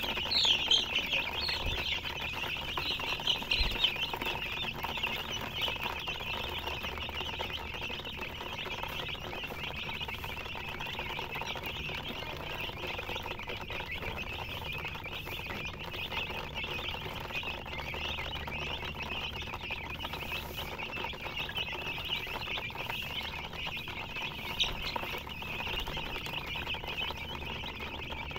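A crowd of young chicks peeping nonstop, many high overlapping calls at once, busiest and loudest in the first few seconds.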